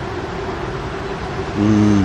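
Steady outdoor rumble like distant traffic, with a brief low, even hum about a second and a half in.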